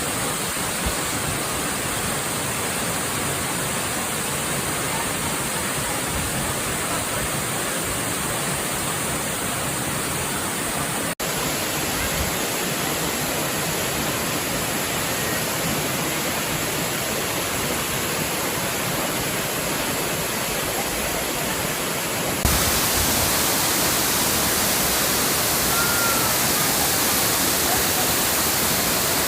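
Steady rushing of falling water from Mackenzie Falls waterfall. It breaks off abruptly twice and resumes at once, a little louder after the second break.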